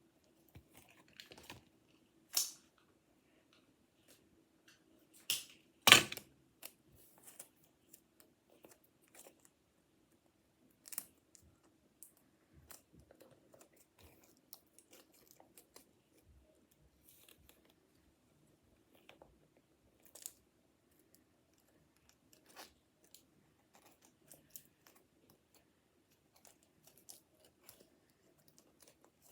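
Scissors snipping and paper and cardboard being handled: scattered short snips and crinkles, the loudest about six seconds in, over a faint steady hum.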